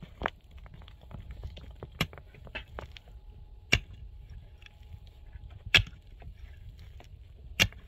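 A hand pick striking hard, stony soil, with five sharp blows spaced roughly two seconds apart and smaller knocks of stones between them. Wind rumbles on the microphone underneath.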